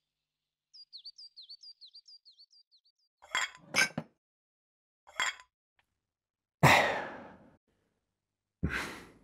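A small bird chirps a quick run of about eight notes. Then tableware clinks three times, two knocks close together and one a second later. Two long breathy sighs follow, about two seconds apart.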